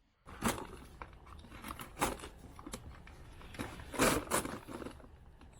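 A few sharp knocks and scrapes of objects being handled, the loudest pair about four seconds in, over a low background.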